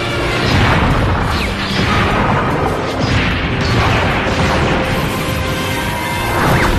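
Dramatic background music over fight sound effects: several booming impacts and crashes as giant combatants clash amid showering sparks.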